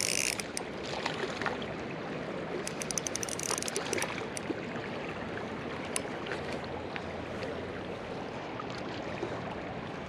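Steady rush of flowing river water, with two short runs of rapid clicking from a spinning reel, one at the very start and one about three seconds in.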